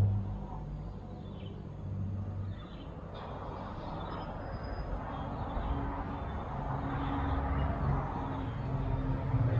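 Slow ambient background music of low sustained notes, with birds chirping in short falling calls about once a second.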